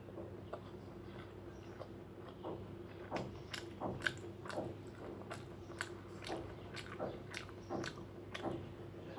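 Close-up chewing and mouth sounds of someone eating, with short wet clicks and smacks that come about twice a second from about three seconds in. A faint steady hum runs underneath.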